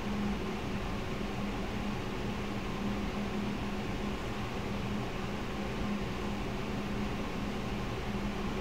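Steady low hum with an even hiss, like a fan or kitchen appliance running, with no knocks or clicks standing out.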